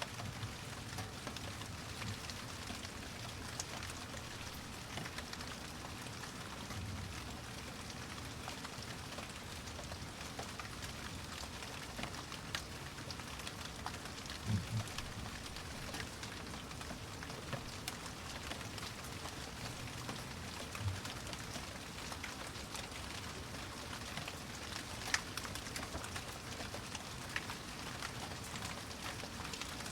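Steady rain falling, a dense patter of drops with a few soft low thumps.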